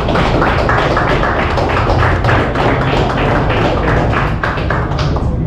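A group clapping hands in a fast, even rhythm, stopping about five seconds in, over a steady low hum.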